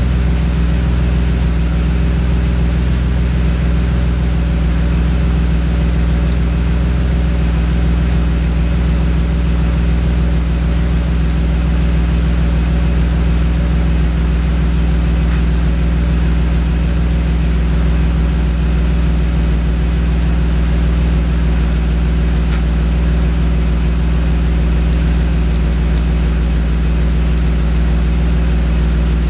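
2003 Mazda6s 3.0-litre V6 idling steadily through an aftermarket exhaust: MSDS shorty headers, Y-pipe and mid-pipe with a Vibrant high-flow metal-core catalytic converter, heard at the tailpipe.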